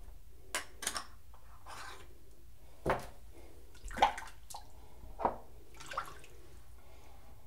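Water splashing at a sink in a string of short splashes, the loudest about four seconds in.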